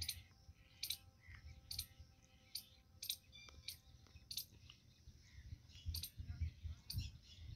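Squirrel giving a faint, repeated sharp chirp call, about one short high chirp a second, with a brief pause about two-thirds of the way through.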